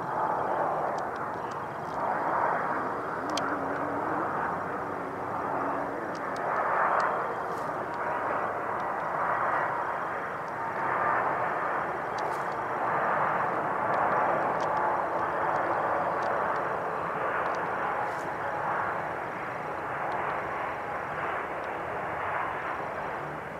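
Jet airliner engines: a steady rushing roar that swells and eases in slow waves.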